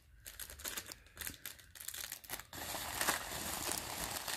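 Clear plastic jewelry bag crinkling as it is handled: irregular soft rustles, sparse at first and denser and louder from about halfway through.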